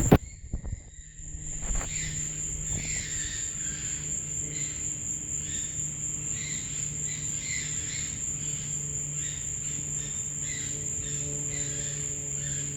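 Night insects trilling in one continuous high steady tone, with irregular short repeated calls from some other unseen animal and a low steady hum beneath. A loud rumble of handling or wind on the microphone cuts off suddenly at the very start.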